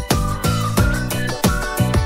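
Background music with a steady drum beat and a high melody line that glides up and down.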